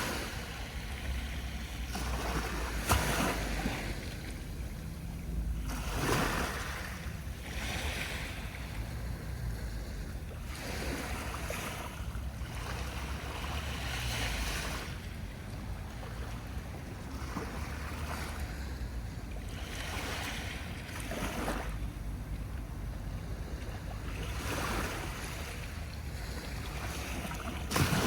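Sea waves breaking and washing up the shore, one surge every few seconds, over a low steady rumble.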